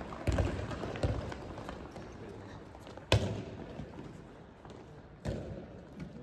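A handball thudding on the sports hall floor and into players' hands during passing play: four separate thumps with a hall echo, the loudest about three seconds in.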